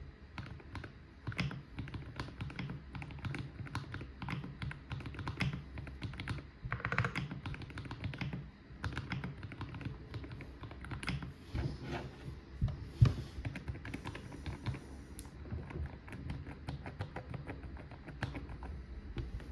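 Typing on a GMMK Pro mechanical keyboard with Akko V3 Cream Yellow linear switches: a fast, uneven stream of key clacks, with one louder clack about thirteen seconds in.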